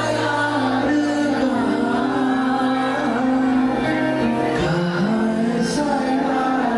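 Background song with a sung melody over held instrumental notes.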